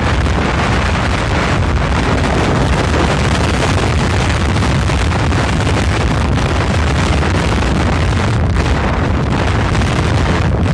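Heavy wind buffeting on the microphone of a moving vehicle: a loud, steady, unbroken rumble that drowns out any other sound.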